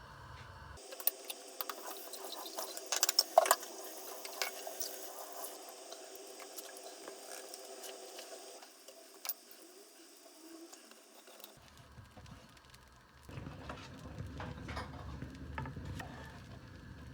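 Baghrir batter cooking in a hot pan, a light crackle and patter, with a cluster of sharp clicks of utensils on the pan a few seconds in.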